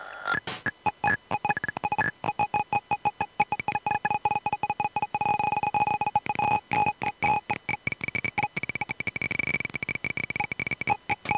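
Glitchy experimental electronic music from a modular synthesizer slicing up samples of circuit-bent audio gadgets: rapid stuttering pulses of beeping tones, chopped on and off many times a second.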